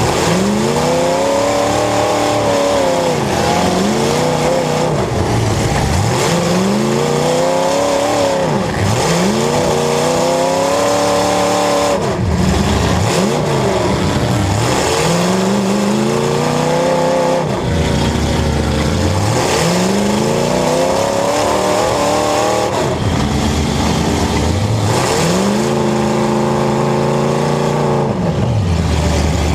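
Demolition derby car engines revving hard and easing off over and over, the pitch rising and falling about every two to three seconds as the cars accelerate and back up in the arena.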